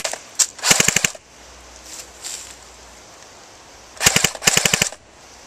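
Airsoft electric rifle firing two full-auto bursts of rapid clicking shots: a short one under a second in, and a longer one, broken into two quick strings, about four seconds in.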